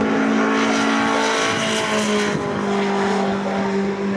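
Racing pickup trucks' engines running hard as the trucks pass, their tones held steady then stepping down in pitch about a second and a half and two and a half seconds in. The overall sound is loudest around the middle.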